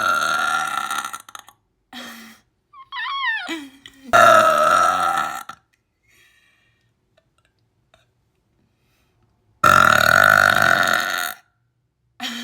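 A woman's loud, long burps: one runs on from before and fades about a second in, another comes about 4 s in, and a third, long one about 10 s in. A short falling vocal sound comes just before the second burp, with a pause of a few seconds between the second and third burps.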